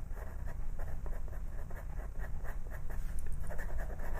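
Pastel pencil scratching on textured pastel paper in quick, short shading strokes, over a low steady hum.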